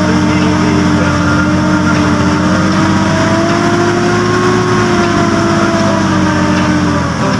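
Vehicle engine running steadily while driving, heard from inside the cab: a continuous low rumble with a slowly wavering drone.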